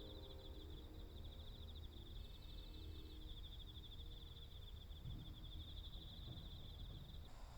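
Insects chirring faintly in a steady, fast-pulsing high trill, over a low background rumble.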